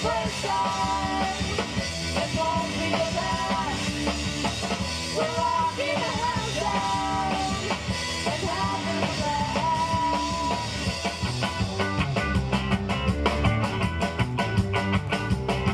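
Rock music with a bending melodic lead line; about three quarters of the way in, the drums come to the fore with a rapid run of hits.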